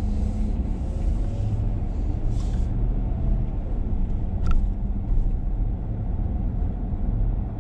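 Pickup truck driving slowly, heard from inside the cab: a steady low engine and road rumble, with one short click a little past halfway.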